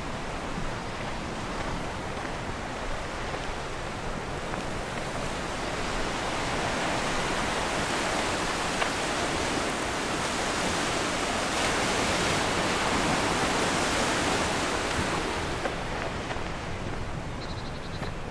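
Sea waves washing ashore, a long rush of surf that builds over several seconds and then falls away near the end.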